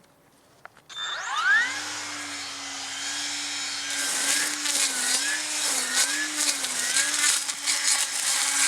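Battery-powered cutting tool: its electric motor spins up with a rising whine, runs at a steady pitch, then cuts, its pitch dipping and recovering again and again as it bogs under load; it cuts off suddenly near the end.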